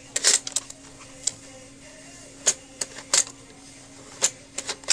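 Handling noise: about a dozen sharp, irregularly spaced clicks and taps as small plastic toy figures and the camera are handled, over a faint steady hum.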